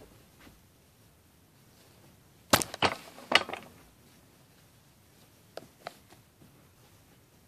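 A quick cluster of four or five sharp knocks and clatters about two and a half seconds in, then two soft clicks a couple of seconds later, from someone moving about and bumping things close to the microphone.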